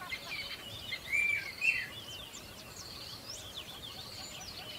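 Many small birds chirping and twittering together over a faint steady high trill, with two louder calls between one and two seconds in.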